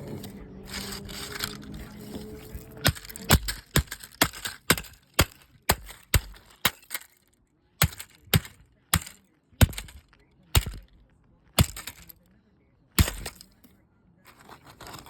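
Hammer blows striking a digital alarm clock: about twenty sharp cracks, about three a second at first, then slowing to about one a second and stopping shortly before the end.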